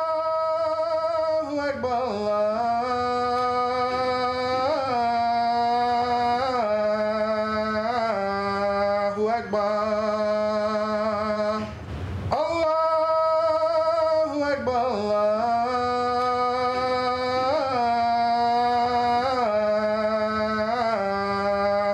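A single voice singing unaccompanied in long held notes, each ending in a short ornamental turn, with a breath about twelve seconds in.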